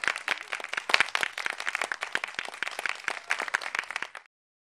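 Small audience applauding, dense irregular hand clapping that cuts off suddenly about four seconds in.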